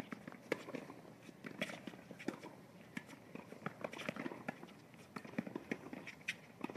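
Tennis rally on a hard court: sharp knocks of rackets striking the ball, mixed with players' footsteps and shoe scuffs on the court surface, coming irregularly several times a second.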